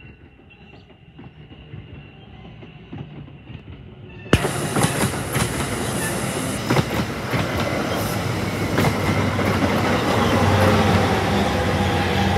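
Bilevel commuter coaches rolling past close by, their wheels clicking over the rail joints. The sound is fairly quiet at first, then about four seconds in it becomes abruptly much louder, with sharp clicks and a rumble. Near the end a steady low drone builds as the diesel locomotive pushing the train comes alongside.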